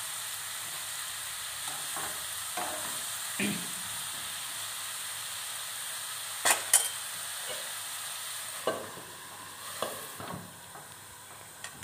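Turmeric-coated mushrooms sizzling in a nonstick frying pan while a wooden spatula stirs them, with sharp knocks of the spatula against the pan. The loudest is a pair of knocks about six and a half seconds in. Near the end a glass lid is set on the pan and the sizzle gets quieter.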